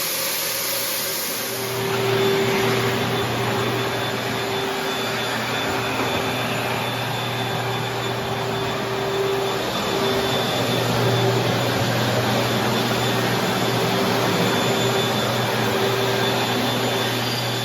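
A vacuum-type motor on floor-cleaning equipment running steadily with a whirring hum. Its hum comes in about a second and a half in.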